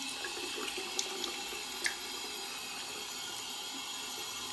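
Water running steadily from a single-lever bathroom tap into the sink as hands are rinsed under the stream, with a few brief clicks between one and two seconds in.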